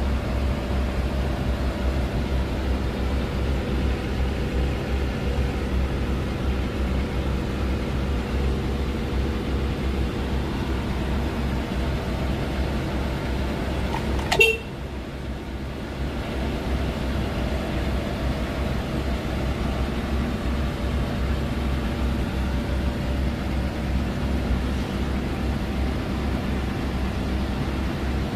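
Steady hum inside the cabin of a Daihatsu Zebra Espass idling with its 1.3-litre fuel-injected four-cylinder engine and the air-conditioning blower running on full. A sharp click about halfway through, after which the sound dips briefly before the steady hum returns.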